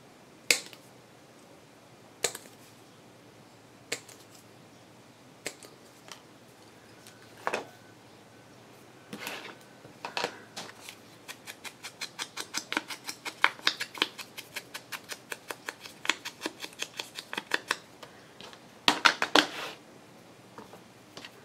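Scissors snipping paper: a few separate snips, then a long run of quick snips at about five a second, and a brief cluster of snips near the end.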